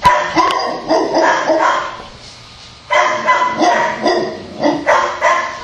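Several dogs barking at once, many overlapping barks in two bouts with a brief lull about two seconds in.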